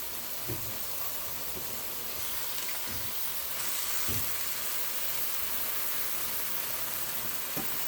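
Chicken stir fry sizzling steadily in a hot pan, with a few soft knocks.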